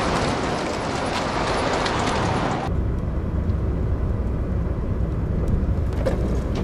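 A car driving on a rough lane, with tyre and road noise heard from outside. About two and a half seconds in it cuts suddenly to a low, steady engine and road drone heard inside the car's cabin.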